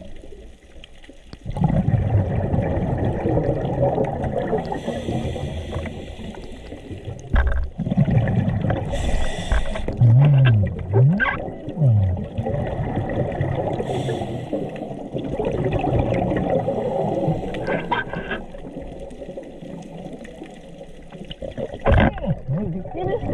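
Scuba diver's breathing heard underwater: long bubbling rumbles of exhaled air from the regulator, with short hisses of inhaled air between them.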